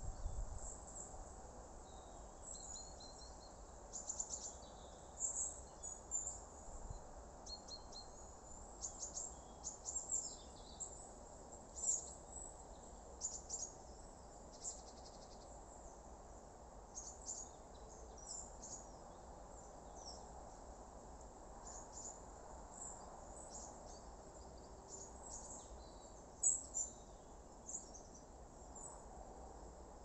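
Natural outdoor ambience: many short, high, irregular chirps from small birds and insects in trees and scrub, a few of them louder, over a steady low rumble.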